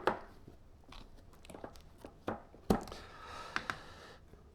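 Handling noise of pistols being moved and set down: a handful of scattered clicks and knocks, the loudest a little under three seconds in, with a short soft rustle just after.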